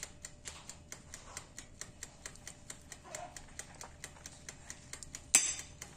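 Faint rapid clicking, several small clicks a second, with one louder sharp knock about five seconds in.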